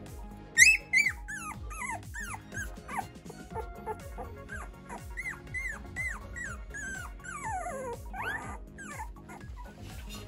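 A young Cavoodle puppy whimpering and squealing in a quick series of short, high cries that each fall in pitch. The loudest cries come about half a second in, and a longer cry slides down near the end.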